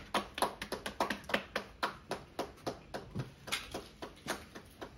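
A small group clapping hands in a steady rhythm of about four claps a second, growing quieter and stopping near the end.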